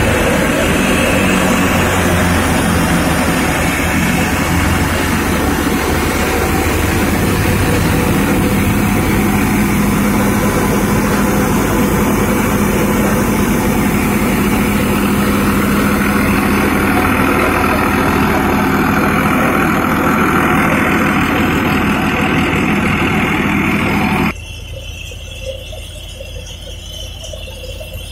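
Tractor-driven STAR Tokri model thresher running steadily under load while threshing pigeon peas, its drum and the tractor engine making a loud, dense mechanical din. About four seconds before the end the sound drops suddenly to a much quieter level.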